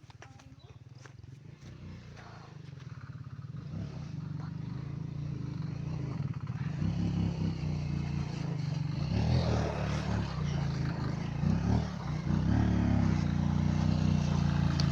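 Motorcycle engine running, growing steadily louder, with its pitch rising and falling a few times in the second half.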